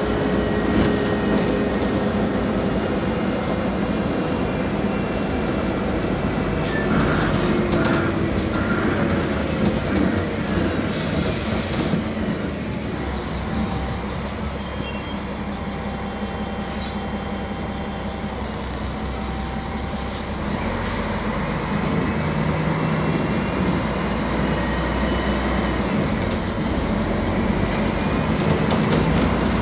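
Mercedes-Benz OM-457 LA inline-six diesel of an articulated city bus running under way, heard from inside the bus. The engine note eases off for several seconds in the middle and picks up again after about twenty seconds. There is a short hiss of air about eleven seconds in.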